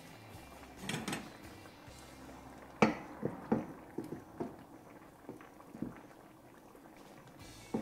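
Wooden spoon knocking and scraping against a skillet while spooning thick coconut cream sauce over salmon fillets: a series of light knocks, the loudest about three seconds in, then smaller ones.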